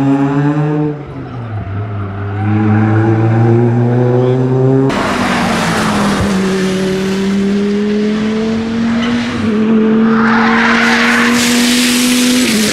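Race car engines at speed. For the first five seconds one engine climbs steadily in pitch as it accelerates. About five seconds in, the sound switches suddenly to a louder, noisier engine, and its pitch also rises slowly.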